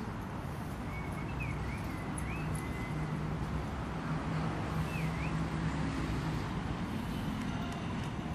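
Steady rumble of city street traffic, with a low engine hum in the middle and a few short high chirps.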